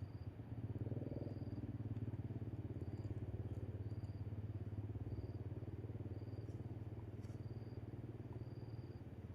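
A low, steady engine hum with a fast pulse, easing near the end, and faint short high-pitched chirps repeating about once a second.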